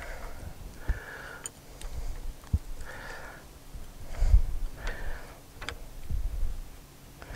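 Metal clutch parts being handled, with scattered light clicks and a couple of dull knocks, while a person breathes in soft puffs every couple of seconds.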